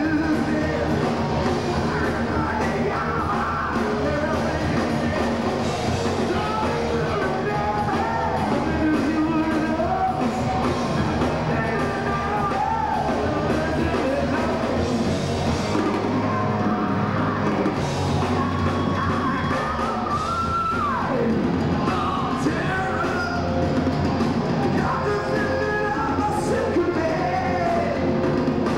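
Heavy metal band playing live, with electric guitar under a male lead singer who sings and yells the vocal line.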